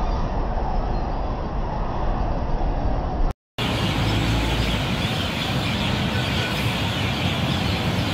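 Steady hum of heavy road traffic from cars, vans and trucks on a busy multi-lane road below. The sound drops out for a moment a few seconds in and then resumes.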